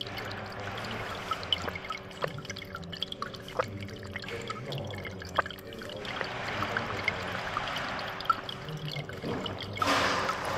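Water trickling with scattered drips over a steady low machine hum. A louder rustling burst comes near the end.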